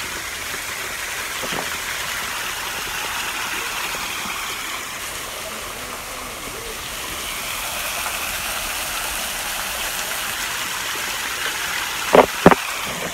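Steady rush of water pouring over a small waterfall. Two sharp clicks come close together near the end.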